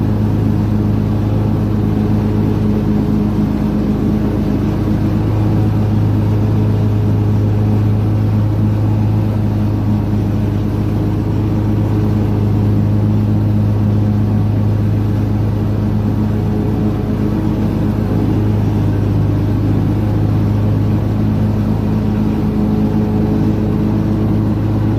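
Riding lawn mower's engine running steadily at a constant speed while mowing, with no change in pitch, cut off abruptly at the end.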